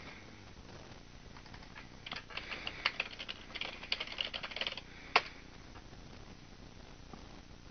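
Typing on a computer keyboard: a quick run of keystrokes lasting about three seconds, ending with one sharper, louder key press about five seconds in.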